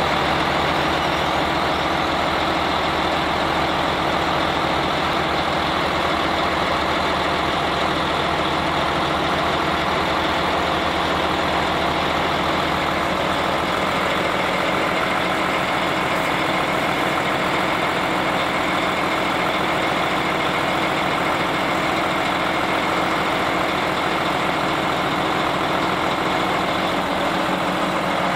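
Lorry-mounted crane truck's engine running steadily to drive the crane's hydraulics as it lifts a load, a constant hum with no breaks.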